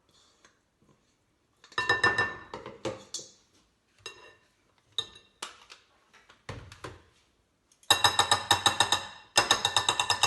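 A spoon clattering and knocking against a mixing bowl as egg whites are stirred into mascarpone cream by hand. There are rapid runs of ringing clinks about two seconds in and again twice near the end, with scattered single knocks between them.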